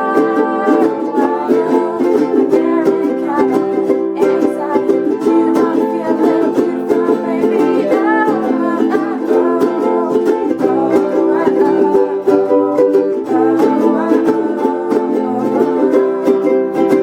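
Ensemble of ukuleles strumming chords together in a steady rhythm, with voices singing the melody over them.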